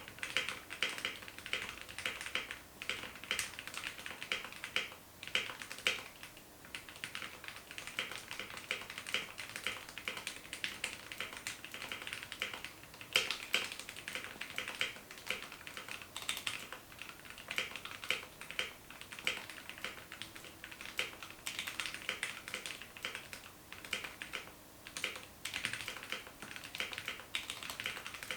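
Typing on a mechanical keyboard with lubed Gateron Yellow linear switches and doubleshot PBT keycaps: a continuous run of quick, irregular key presses, each a short clack, with an occasional louder stroke such as the spacebar.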